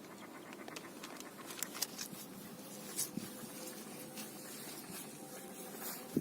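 Bread being broken and crumbled by hand, mixed with cinnamon into groundbait: faint crackling and rustling, with a few small taps about two and three seconds in.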